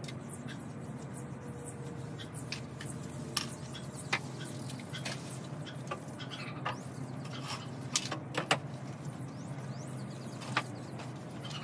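A wooden patio table being handled and turned upright: scattered knocks and clunks of wood, the loudest two close together about eight seconds in, over a steady low hum.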